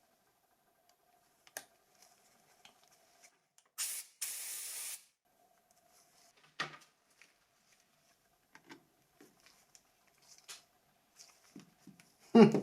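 A short blast of air, about a second long, a little under halfway through, blowing dust off the phone's parts. Small clicks and taps of plastic parts being handled come before and after it.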